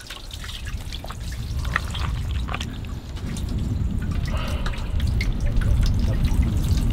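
Water splashing and trickling as palm weevil grubs are washed, with scattered small splashes that grow a little louder over the stretch.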